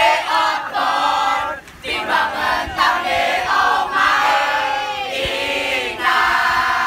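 A group of young voices singing a team cheer together in unison, led by one teammate, in held phrases with short breaks between them.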